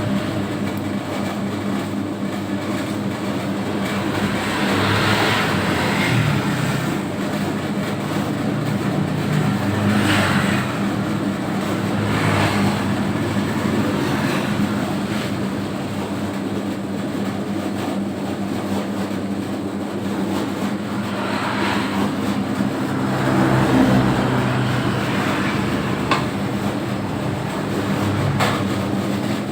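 Home-built 3 kg doughnut dough mixer running with a steady motor hum, the churning noise swelling and fading every few seconds.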